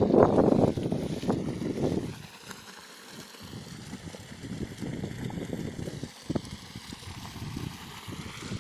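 Wind buffeting the microphone: irregular low rumbling gusts, strongest in the first two seconds, then weaker and patchier.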